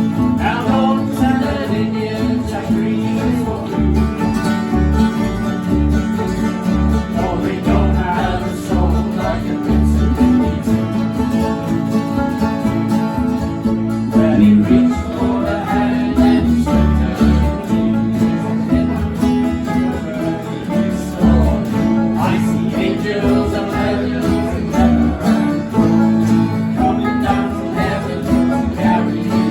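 Acoustic bluegrass-style music on plucked strings, guitar to the fore, with a voice singing in phrases now and then.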